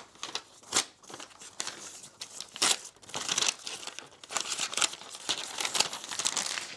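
Paper wrapping crinkling and rustling in irregular crackles as it is pulled off and unfolded from around headphones, getting busier in the second half.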